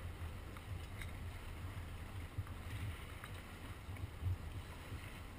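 Low, uneven rumble with a faint wash of wind and water noise aboard a sport-fishing boat.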